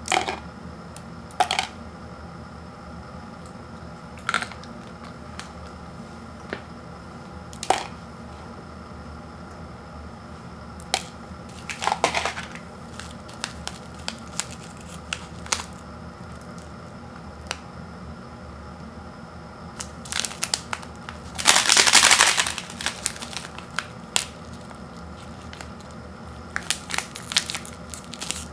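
Hands handling dry brown rice ramen and a foil seasoning packet: a few scattered small cracks of dry noodle bits being broken off, then the foil packet crinkling and being torn open, with one loud rustle lasting about a second and a half about three-quarters of the way through and more crinkling near the end.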